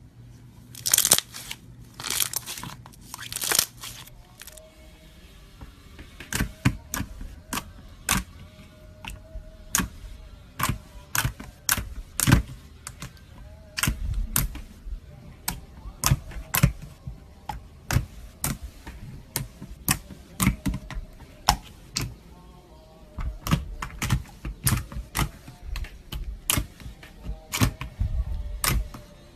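Slime being squeezed and poked by hand: three short squishes, then many sharp, irregular clicking pops about two a second as air pockets are pressed out.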